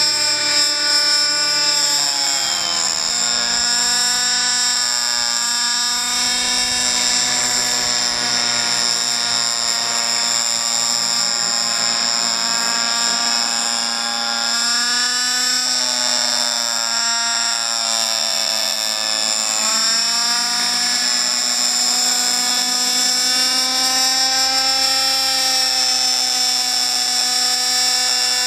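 Two-stroke Novarossi 50H 8.4 cc glow engine of a Robbe Moskito Sport RC helicopter running, with a high, steady whine over the engine note. The pitch dips and comes back up three times: about two seconds in, around the middle, and again a few seconds later.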